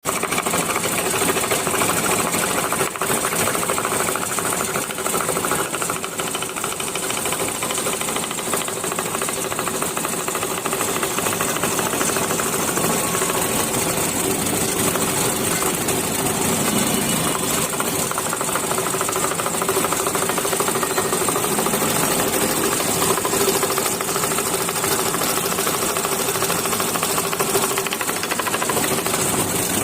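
Power saw cutting a wooden jali lattice, running with a steady, fast rattling chatter and an even hum.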